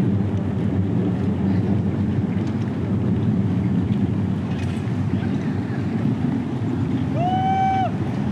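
Steady, dense background noise, with one long high-pitched shout about seven seconds in.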